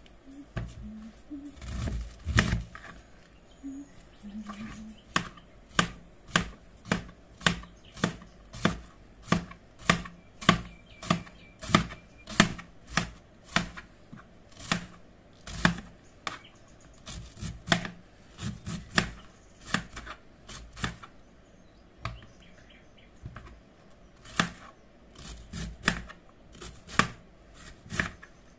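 Kitchen knife shredding a head of white cabbage on a plastic cutting board: a few louder knocks about two seconds in, then a steady run of chops, roughly three every two seconds, each stroke cutting through the leaves and tapping the board.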